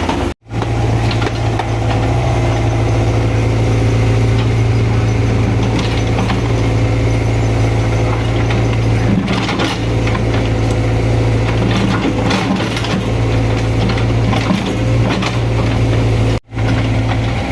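Excavator's diesel engine running steadily under load, with intermittent metallic clanks from the working arm and bucket. The sound cuts out briefly twice, just after the start and near the end.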